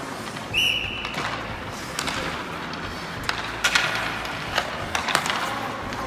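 A short whistle blast about half a second in, then scattered sharp clacks of hockey sticks and a puck on the ice during a passing drill, over the steady noise of the rink.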